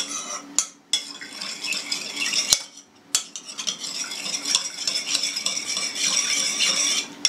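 A metal utensil stirring yeast into milk and water in a mixing bowl, scraping and clinking against the bowl, with a short pause about two and a half seconds in.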